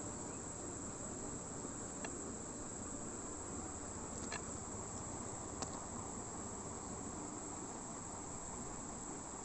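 Crickets trilling steadily in a high, continuous pitch, with a few faint taps.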